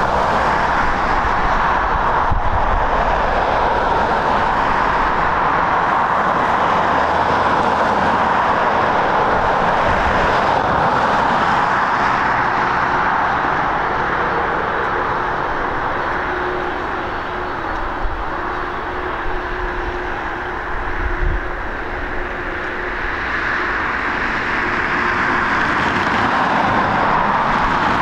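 Boeing 767's twin jet engines running at low taxi power as the airliner rolls past: a steady, even roar strongest in the mid range, easing off slightly about two-thirds of the way through, with a faint steady hum in the middle stretch.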